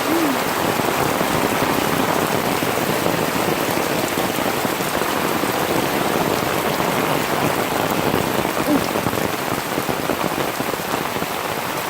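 Heavy rain falling steadily and loudly on a clear umbrella held over the microphone.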